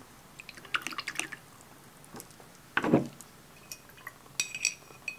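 Watercolour brush being rinsed in a glass of water: small splashes and drips, then a few ringing clinks of the brush against the glass near the end.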